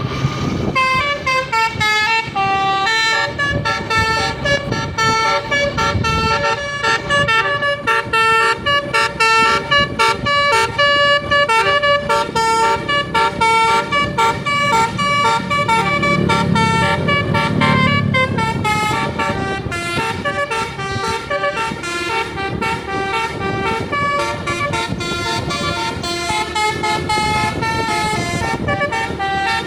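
A bus's Basuri telolet musical air-horn set playing a fast tune: short horn notes stepping quickly from pitch to pitch, several horn tones sounding together as chords.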